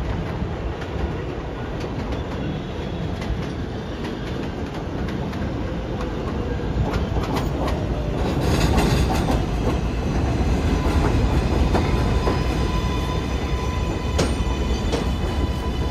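R188 subway train running on the 7 line: a steady rumble with wheels clacking over rail joints. About halfway through it grows louder and a steady high whine of several tones comes in.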